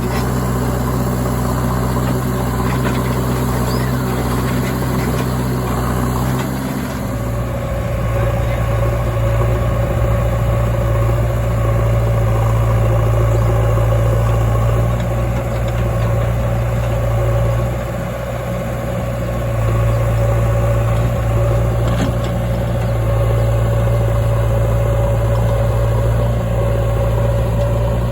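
Heavy diesel engine running steadily under work. Its note shifts about seven seconds in, and it eases off briefly around eighteen seconds before picking up again.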